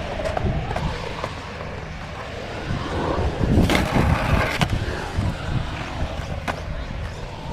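Skateboard wheels rolling and rumbling on the concrete of a skate bowl. The sound grows louder about halfway through as a skater carves past close by, with a couple of sharp clacks.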